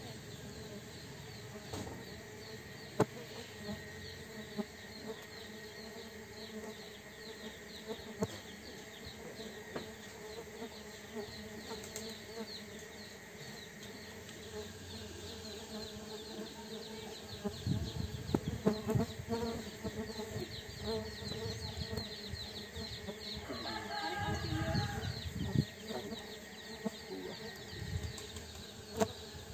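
Tetragonula biroi stingless bees buzzing as they swarm around their wooden hive box, stirred up by the disturbance, over a steady background of insect chirping. Bees fly close past the microphone about two-thirds of the way in and again near the end, briefly louder.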